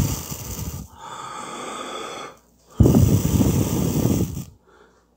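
A person blowing hard on the lit arc of an electric double-arc plasma lighter, testing whether it stays lit in wind. There are two long blows, each about one and a half to two seconds; the second is louder and rumbles on the microphone.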